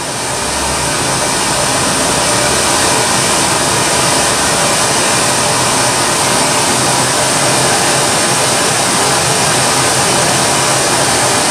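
Pink noise test signal from a measurement analyser's generator, played steadily through the Beta Three U15a loudspeaker being measured while a transfer-function trace is captured.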